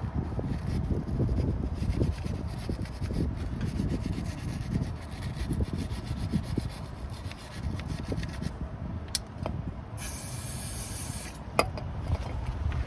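Irregular rubbing and scraping of hands and a rag or tool on the drive shaft end and gearbox housing, with a few small clicks. A short hiss comes about ten seconds in.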